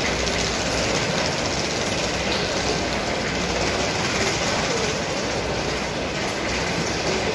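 Small wheels of rolling suitcases rattling steadily over a tiled floor, mixed with footsteps of people walking.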